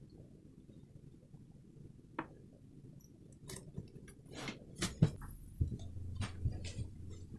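A few faint clicks and knocks of handling over low room noise, the loudest about five seconds in; no ringing glass tone is heard.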